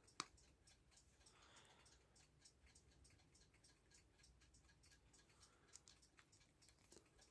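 Near silence with faint, irregular small clicks, one sharper click about a quarter second in: pliers nipping and gripping at the pins of a small brass lantern pinion.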